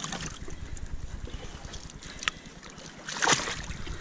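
Wind rumbling on the microphone over water sloshing and dribbling in a shallow rock pool as wet kelp and stones are handled. A sharp click comes a little after two seconds in, then a brief, louder splash about three seconds in.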